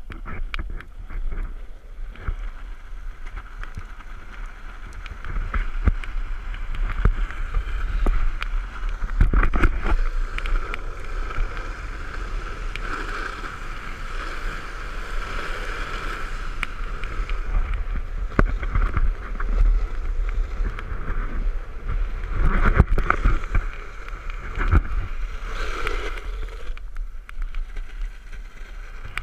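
Skateboard wheels rolling fast over rough, cracked pavement: a steady rolling roar with many sharp clacks as the wheels strike cracks and bumps, over a low rumble.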